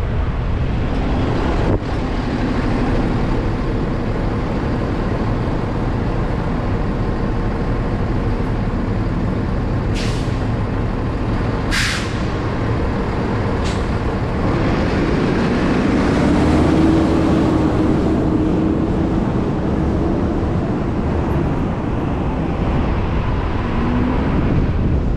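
Steady road and engine noise of a car driving on city streets, with three short sharp hisses about ten, twelve and fourteen seconds in.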